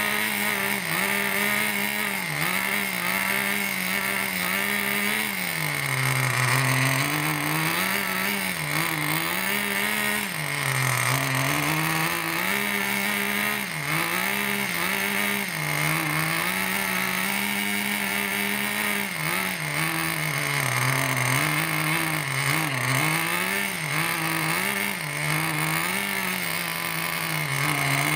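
Small nitro engine of an RC monster truck running, its revs rising and falling over and over as the throttle is blipped.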